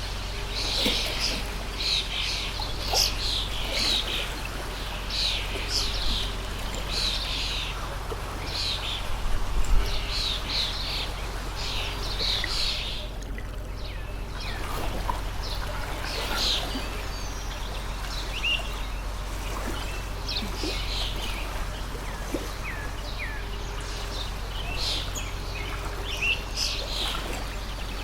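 Small birds chirping in quick, repeated calls over the steady trickle of a flowing stream; the chirping is dense at first and thins out about halfway through.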